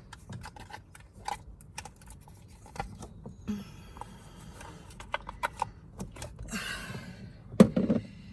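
Irregular small clicks and taps of artery clamps and an HT lead being worked through a cramped engine bay, with a brief rustle about two-thirds through and a sharper knock near the end.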